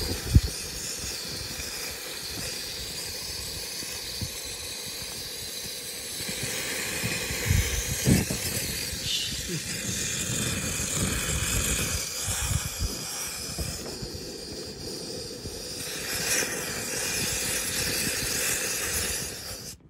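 Campy Gear 2-in-1 portable propane heater and stove flaring with large flames: a steady hiss of gas with an irregular low rumble from the fire. It is the sign of a wrong gas mixture, which the owner blames on a leak or clog in the hose. It grows louder about six seconds in and again near sixteen seconds.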